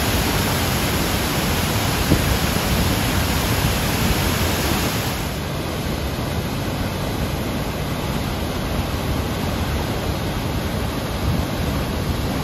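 Waterfall rushing: a steady, loud noise of water pouring over rock and crashing into a pool. About five seconds in it turns duller and less hissy, heard from farther away.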